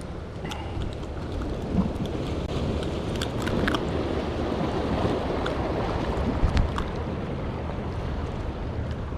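Wind buffeting the microphone over the wash of sea waves against jetty rocks, a steady noise with a few light clicks scattered through it.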